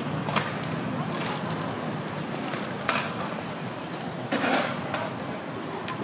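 City street ambience on a pedestrian path: a steady low hum with faint background chatter, broken by four sharp clacks, the last a little longer and scraping.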